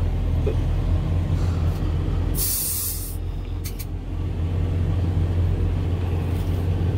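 Semi truck's diesel engine running steadily, heard from inside the cab, with a sharp hiss of released air from the air brakes about two and a half seconds in, lasting under a second.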